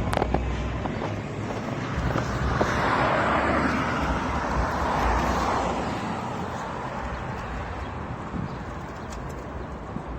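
Street traffic heard while riding, with wind rumbling on the microphone; the noise swells louder between about three and six seconds in as a vehicle passes.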